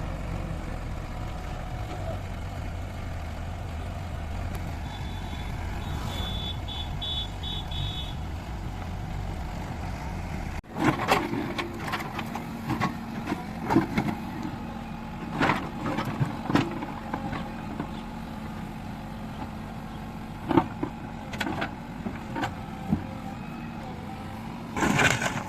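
Backhoe loader's diesel engine running with a low rumble, and a short run of high beeps partway through. After an abrupt change, sharp knocks and clanks sound at irregular intervals over a steadier engine hum.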